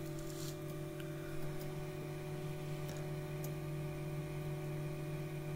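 Resin 3D printer humming steadily as its build plate lowers into the resin vat at the start of a print, with a few faint ticks.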